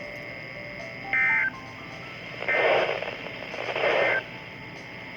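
NOAA Weather Radio SAME end-of-message data tones: three short bursts of warbling two-tone digital data about a second and a half apart, marking the end of the severe thunderstorm warning broadcast. A steady radio hiss runs under them.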